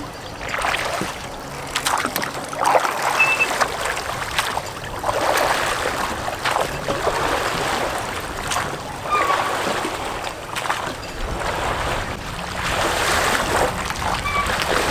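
Oars of a small folding tender dipping and splashing in calm water as it is rowed, in repeated swells of splashing.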